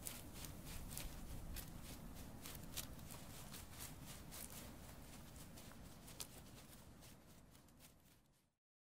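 Faint sound-effect footsteps rustling and crackling over forest ground, a quick run of irregular steps that gradually fades away and stops about eight seconds in.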